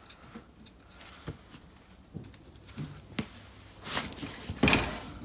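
Plastic bar clamps and a metal jig being handled: scattered light clicks and knocks, then a louder clatter about four to five seconds in as the clamped assembly is moved.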